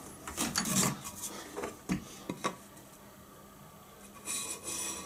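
A Japanese pine board and a set square being handled on a workbench: a few sharp knocks around the middle, then two short scraping rubs near the end.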